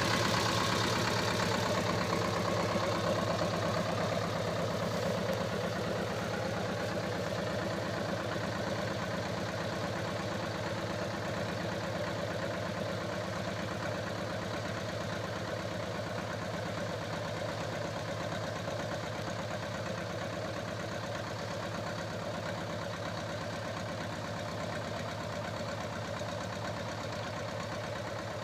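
Same 250 tractor engine running steadily, a little louder and brighter in the first few seconds and then settling.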